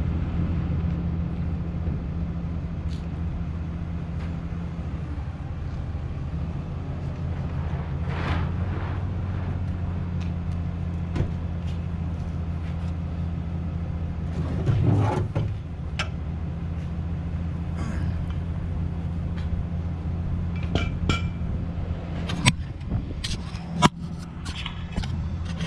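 Vehicle engine idling with a steady low hum. A few sharp metallic clicks and clinks come near the end.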